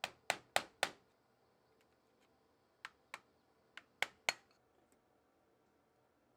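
Hammer blows on metal in three quick runs: four sharp strikes, then two, then three.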